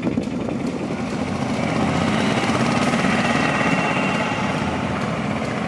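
Steady rumble of a motor vehicle's engine running, growing a little louder around the middle, then easing off.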